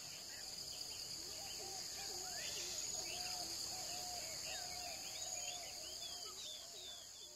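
Faint outdoor nature ambience: a steady high-pitched insect drone, with many short chirping bird calls and a run of short, repeated lower calls.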